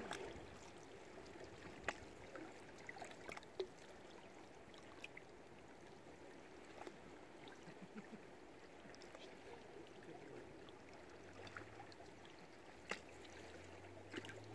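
Faint water lapping and trickling, with scattered small clicks and knocks, a few sharper ones standing out.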